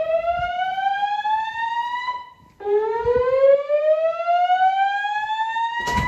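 Fire alarm voice-evacuation speakers of a Notifier 3030 system with DVC sounding the slow whoop alert tone between voice messages: a loud tone sweeping upward over about three and a half seconds and briefly holding at the top. One sweep ends about two seconds in and the next begins half a second later, reaching its top near the end.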